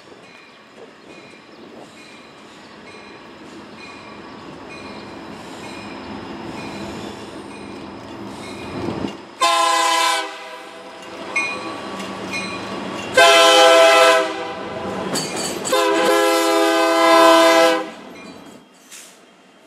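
Freight train led by a Union Pacific diesel locomotive approaching, its rumble growing steadily louder. Then the locomotive's air horn sounds three blasts, the last one the longest, as the train comes alongside.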